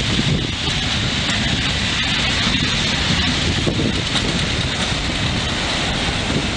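Train passing, a steady rumbling rush of noise.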